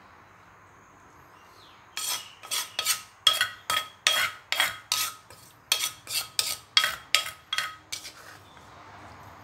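A spoon knocking against the rim and sides of a clay som tum mortar as corn salad is tossed and mixed, a steady run of sharp ringing knocks, two to three a second, starting about two seconds in and stopping near the end.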